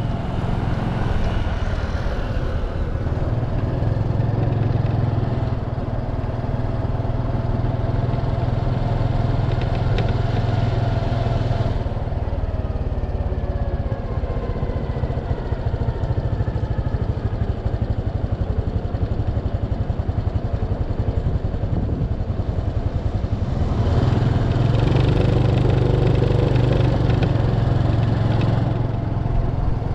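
Motorcycle engine running on the move, its pitch gliding up and down as the bike changes speed, under steady wind rush on the microphone that grows heavier for the first dozen seconds and again near the end.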